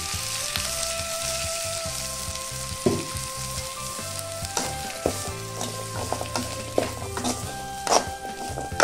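Small onions, garlic, ginger and curry leaves sizzling in hot oil in a kadai as they are fried and stirred, with a few sharp knocks against the pan.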